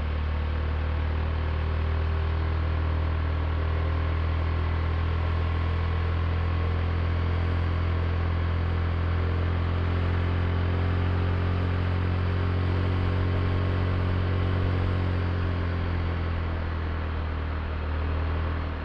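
Honda Click i scooter's single-cylinder engine running steadily under way, a low even hum over a steady hiss, easing off slightly near the end.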